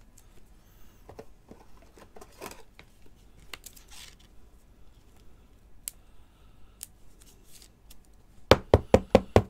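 Stiff clear plastic card top loaders being handled and fitted around a trading card: faint plastic rustling and light clicks, then near the end a quick run of about six loud sharp clicks.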